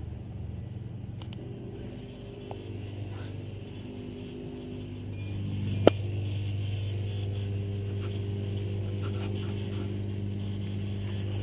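A steady low hum, louder from about five seconds in, with one sharp click near the middle.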